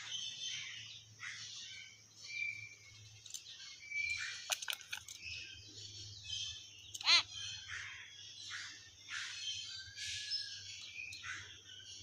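Common hill mynas calling: a run of short chirps and whistles, with one loud, shrill call about seven seconds in and a smooth arched whistle a little later.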